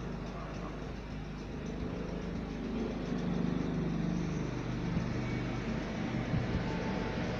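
Steady mechanical hum with low droning tones that grow louder about three seconds in, and a few faint clicks.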